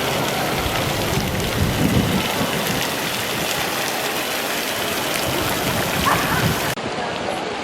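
Steady, dense hiss of falling water, like rain or a splashing fountain, which changes abruptly near the end at a cut.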